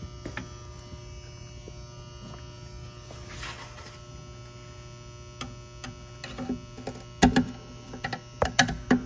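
Steady electrical hum, then from about halfway a run of sharp clicks and knocks, the loudest near the end, from hand work on the crimp connectors and wiring in the oven's control panel.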